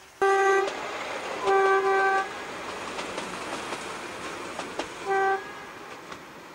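Metre-gauge diesel railcar sounding its horn in three blasts, the middle one longest, over the steady noise of the train running on the track, with a few sharp clicks between the second and third blasts.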